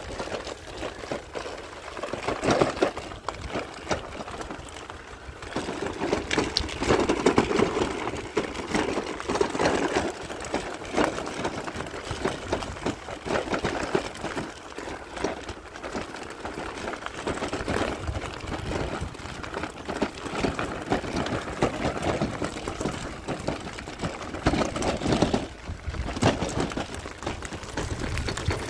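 E-bike being ridden: a continuous mechanical whir with irregular rattling and crackling that swells and fades.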